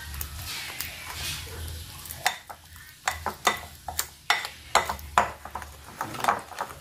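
A spoon stirring thick flour-and-egg batter in a bowl. It scrapes steadily at first, then clinks against the bowl in quick strokes about three or four times a second.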